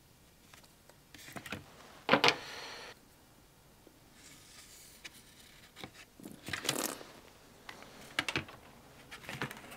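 Workbench handling sounds: a few short knocks and clatters of a plastic set square, ruler and marker pen being picked up and set down, the loudest about two seconds in. A faint scratch of a pen drawing a line comes in the middle.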